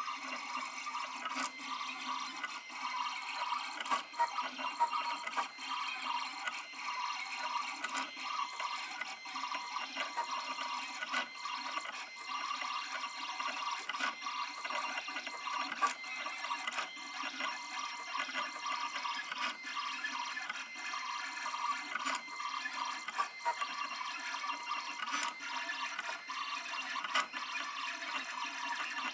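Siser Romeo vinyl cutter cutting white EasyWeed heat transfer vinyl: its motors whir steadily as the blade carriage travels, with frequent small clicks throughout.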